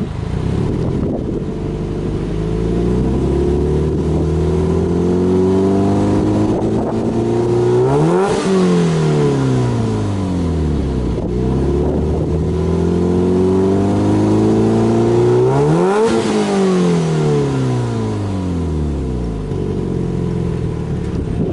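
Subaru Impreza WRX STI's turbocharged flat-four boxer engine, free-revved twice while parked and heard at the tailpipe. Each time the engine note climbs steadily for several seconds, peaks, then falls back toward idle: the first peak comes about eight seconds in, the second about sixteen seconds in.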